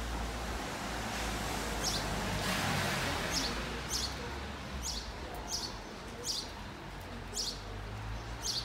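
A bird calling: a short, high chirp falling in pitch, repeated about once a second, over steady background noise. The noise swells into a hiss for about a second around two to three seconds in.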